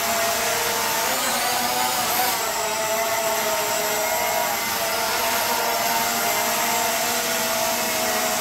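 Holy Stone HS440 quadcopter hovering on altitude hold: its four small motors and propellers give a steady whining buzz, with a brief wobble in pitch between about one and two seconds in.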